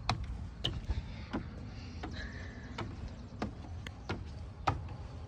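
Footsteps climbing wooden stairs and stepping onto wooden deck boards: a knock about every two-thirds of a second over a low rumble.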